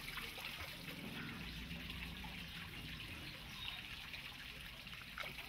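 Small fountain in a garden pond, water spraying up and splashing back into the pond with a steady trickling.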